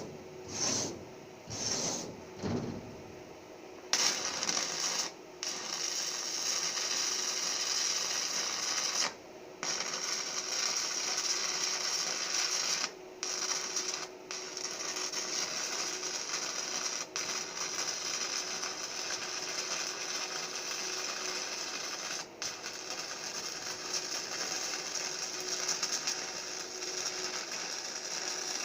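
Stick (shielded metal arc) welding with a 6011 electrode on steel sheet: the arc crackles and hisses steadily, after a few short starts in the first seconds as it is struck. Now and then it drops out for a split second, over a faint steady hum.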